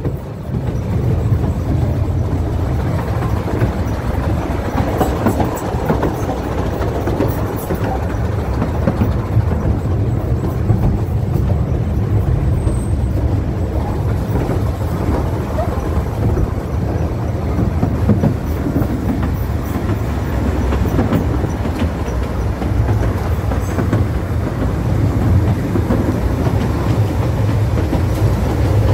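Ffestiniog Railway narrow-gauge train running steadily, a continuous low rumble and rattle of wheels and carriages.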